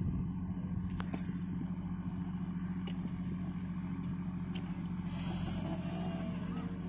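JCB backhoe loader's diesel engine running steadily under load while its rear bucket scrapes and drags soil, with a few sharp knocks about a second in, at three seconds and again a little later.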